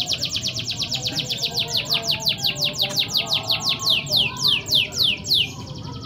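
Canary singing a fast trill of repeated notes, each one sweeping down in pitch. The trill slows as it goes, the notes growing longer and further apart, and it stops about five and a half seconds in.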